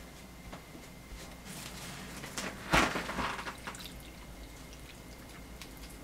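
A metal ladle scooping simmering broth from a rice-cooker pot and pouring it over braised pork cartilage and daikon in a bowl, liquid dripping and splashing, with one sharp knock of utensil against the pot about three seconds in.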